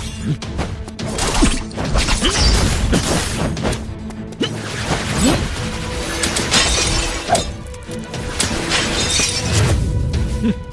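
Designed battle sound effects for magical energy attacks: a rapid series of blasts, impacts and shattering crashes striking a glowing rune shield, over background music.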